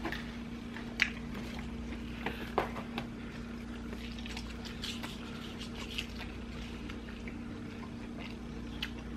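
Close-up eating sounds of fried chicken and pizza: scattered short smacks and bites of chewing, a few of them sharper, over a steady low hum.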